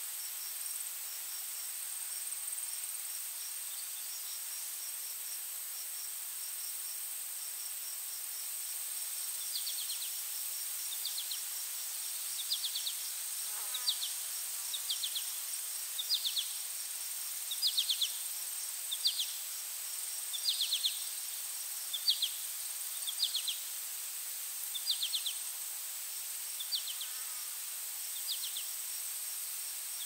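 Forest ambience: a steady high insect drone with a faster pulsing insect chirp beneath it. About a third of the way in, a bird starts repeating a short call of quick falling notes, roughly once every second and a half.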